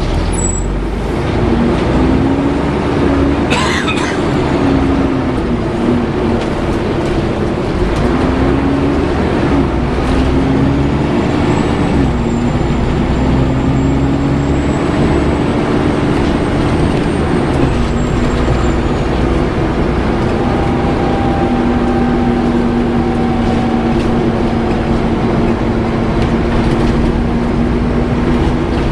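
Volvo B7TL double-decker bus heard from inside while driving: the engine and its hoover-like cooling fan run with a whine that rises and falls with engine speed and then holds steady.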